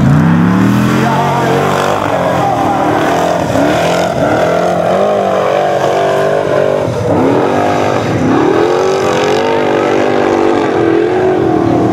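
Formula Offroad hillclimb car's engine revving hard at full throttle on a steep sand climb. The revs rise sharply at the start and hold high, then sag and pick up again several times from about seven seconds in.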